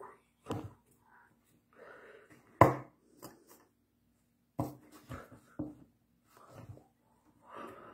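Hands slapping and clapping against each other during sign language, a handful of sharp smacks with the loudest about two and a half seconds in. Between the smacks are short breathy mouth and breath sounds, over a faint steady hum.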